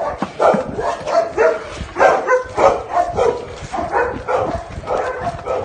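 A dog barking over and over, about two to three barks a second.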